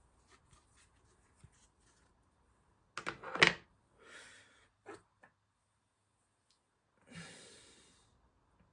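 Light plastic knocks and clatter from handling a clip-lock plastic tub and its lid, loudest in a cluster about three seconds in, with a few smaller knocks after it and a short rustle near the end.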